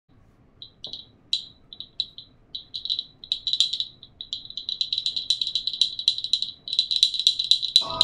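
Handheld wooden bird call worked to make squeaky, high bird-like chirps. At first they come in short separate groups, then they quicken into a fast, near-continuous twitter over the second half.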